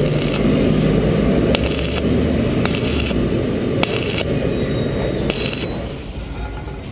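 Stick-welding arc on thin-walled steel tube: a steady crackling sizzle with a brighter hiss surging about once a second, stopping about six seconds in.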